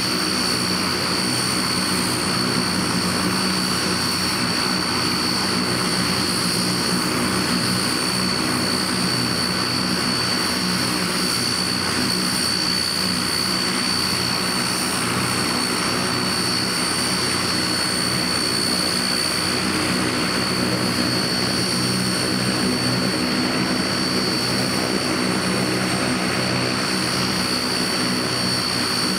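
Antonov An-32's Ivchenko AI-20 turboprop engine running steadily on the ground with one propeller turning, a constant high turbine whine over a low propeller drone.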